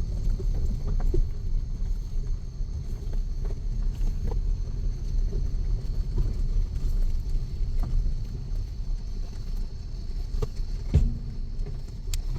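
Vehicle driving over a rough unpaved track: a steady low rumble with scattered short knocks and rattles.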